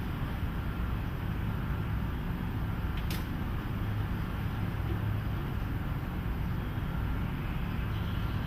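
Steady low hum and background room noise, with a single sharp click about three seconds in.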